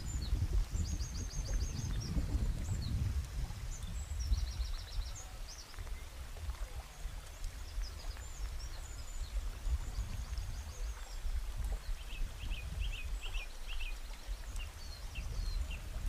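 Wind rumbling on the microphone, with high, quick bird chirps and short rapid trills at intervals over it, a cluster of lower chirps coming about three-quarters of the way through.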